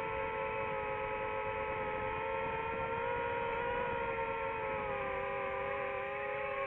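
FPV drone's motors and propellers whining steadily in flight, several close tones together, their pitch easing down a little about five seconds in as the throttle drops.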